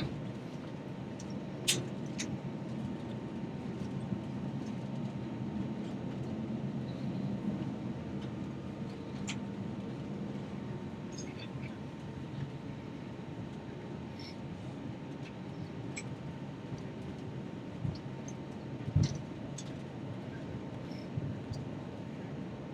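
Steady low drone inside an Airbus A321 airliner cabin, the engines and air system running, with a faint constant tone. Scattered small clicks and knocks, and one heavier thump near the end.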